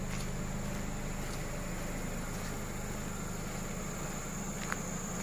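2015 Nissan X-Trail's 2.0-litre four-cylinder petrol engine idling steadily, a low even hum, with a thin steady high whine above it and a single light click near the end.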